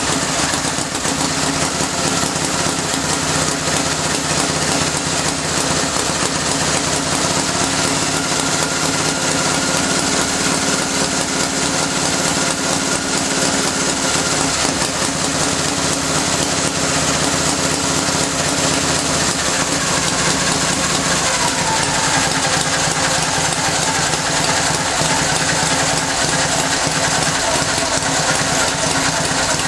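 Vintage Indian motorcycle engine running steadily, with a fast, even firing beat that holds throughout.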